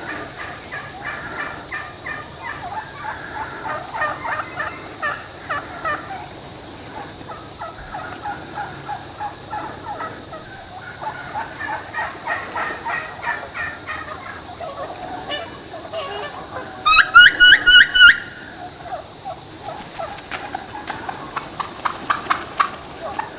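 A flock of wild turkey hens calling: soft, steady clucking and purring, then a loud run of about eight yelps a little past the middle.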